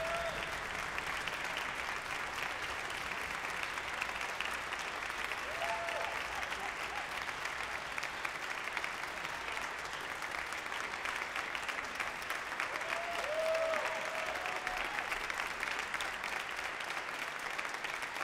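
Concert audience applauding steadily, with a couple of brief shouts from the crowd about six seconds in and again near thirteen seconds.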